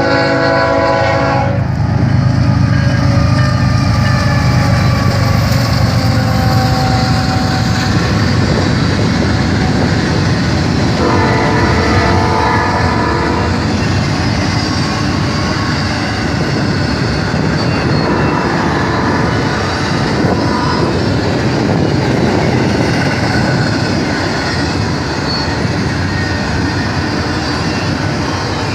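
Union Pacific freight train passing, led by GE C45AH and EMD SD70M diesel locomotives, with a steady loud rumble of engines and rolling wheels. The locomotive horn is still sounding for the first second or so, then gives one more blast of about two and a half seconds near the middle while the cars roll by with a clickety-clack.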